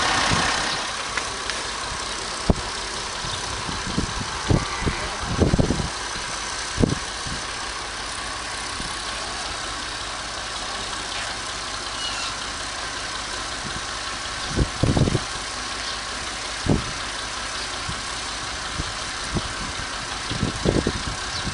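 An engine or motor running steadily, with occasional short low thuds breaking in irregularly.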